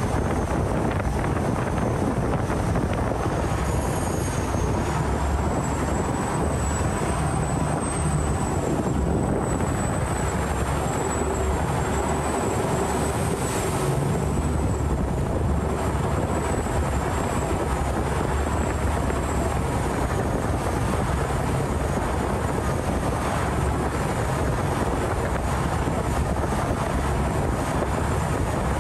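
Khlong Saen Saep canal boat's diesel engine running steadily under way: a loud, unbroken rumble with a thin high whine that wavers in pitch over it.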